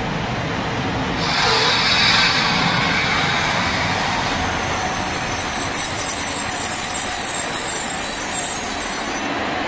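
SNCF Régiolis multiple unit running into the station and past at close range, its wheels and running gear rumbling; from about four and a half seconds a high-pitched squeal of several tones sets in as it brakes to a stop.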